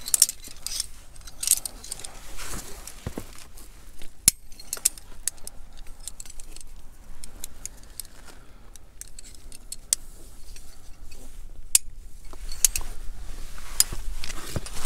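Climbing carabiners clinking and rattling against each other as they are handled and clipped on a fixed rope: scattered sharp metallic clicks, busiest in the first couple of seconds and again near the end.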